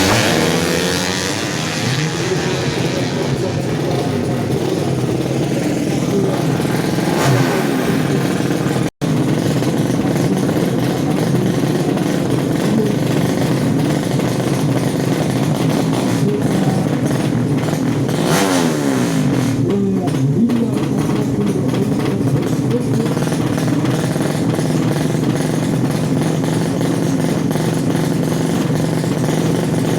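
Drag-race motorcycle engines from the 200cc four-stroke underbone class running and revving, with the pitch sweeping up and down a few times. The sound drops out for an instant about nine seconds in.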